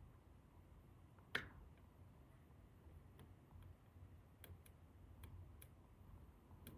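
Lock pick and tension tool working inside an ASSA Desmo lock: one sharp metallic click with a short ring about a second and a half in, then several faint scattered ticks of metal on metal.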